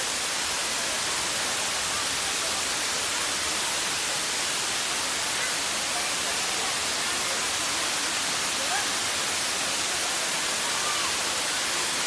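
Waterfall pouring down tiered limestone rock: a steady, even rush of falling and splashing water.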